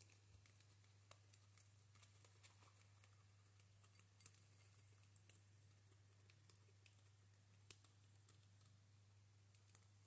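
Guinea pigs chewing dry food mix from a bowl: faint, irregular crunching clicks, over a low steady hum.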